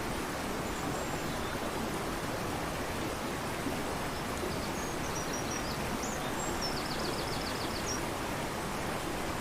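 Fast-flowing river rushing steadily, with faint high bird calls and a short trill of quick repeated notes about three-quarters of the way through.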